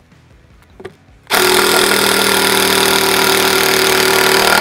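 About a second in, a DeWalt cordless impact driver starts hammering a screw into timber in one loud, steady run. It is running on a 5 Ah battery that is all but flat.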